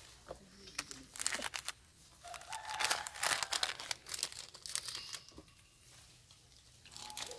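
Leaves and thin twigs rustling and crackling as a long-tailed macaque pulls a leafy branch toward it and strips off leaves to eat. The crackling comes in two bursts, about a second in and, louder, around three seconds in, with scattered crackles later.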